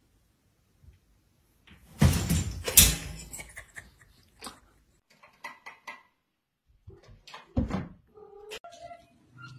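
A metal clothes drying rack draped with towels clatters loudly as a cat jumps off it, pulling the cloths down: a sudden crash about two seconds in, then smaller knocks and rattles.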